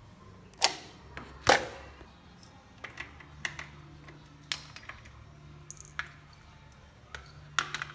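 Scattered clicks and knocks from an electric kettle and its parts being handled. The two loudest come in the first second and a half, lighter taps follow at uneven intervals, and a faint low hum runs under them.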